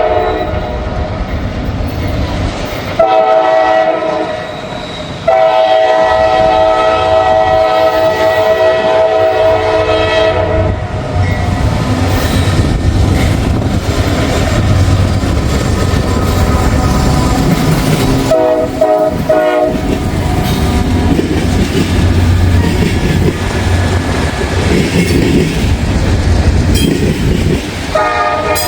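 Freight locomotive air horn sounding for a track work zone: a short blast, a long one of about five seconds, then shorter blasts later. Under the horn, the loud low rumble and wheel clatter of the train running past grows.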